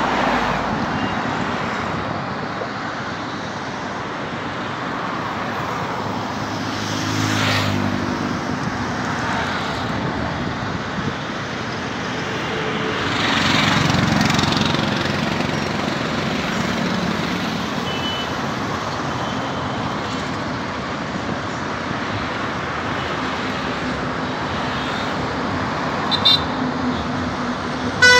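Steady traffic on a multi-lane highway, cars and trucks passing. It swells louder as vehicles go by about 7 seconds in and again around 14 seconds. A few short sharp sounds come near the end.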